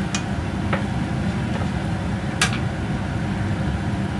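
Chopsticks clicking a few times against a metal wok while stirring simmering pork, the sharpest click about two and a half seconds in, over a steady low kitchen hum.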